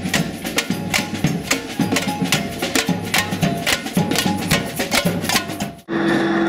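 Street percussion band drumming a fast, steady rhythm with sticks on large drums and sharper, clacking percussion. Near the end it cuts off suddenly, giving way to a held chord of music.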